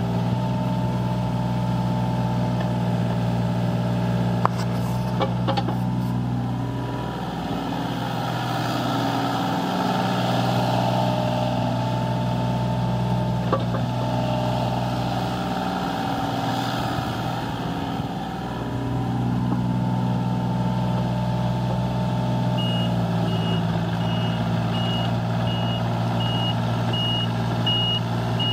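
Takeuchi TB138FR mini excavator's diesel engine running steadily, its pitch dipping briefly twice. About 23 seconds in, the machine's travel alarm starts beeping, about one and a half beeps a second.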